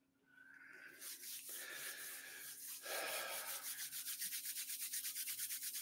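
Palms rubbing together, a dry swishing that speeds up into fast, even back-and-forth strokes, about nine a second, in the second half.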